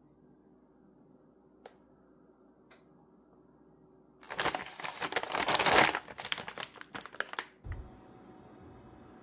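Plastic packaging crinkling and rustling loudly for about three seconds, about four seconds in, as the frozen shrimp mandu are handled out of their wrapper.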